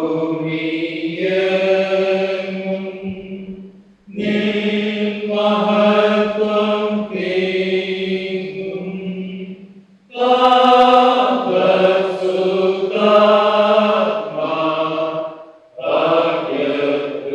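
Slow sung church chant or hymn: voices holding long notes in phrases of about six seconds, with short pauses between phrases.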